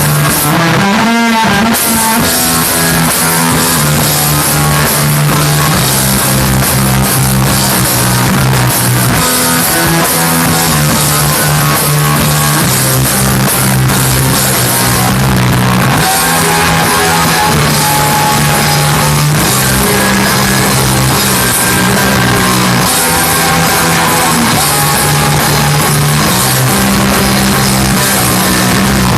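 Rock band playing loudly: guitar over a steady bass line and drum kit, with a quick sliding sweep in pitch about a second in.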